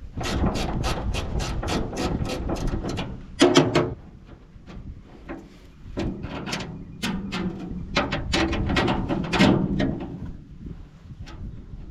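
Ratchet wrench clicking in quick runs of about four clicks a second while a bolt on a hay baler is worked loose, with a single louder metal clank about three and a half seconds in.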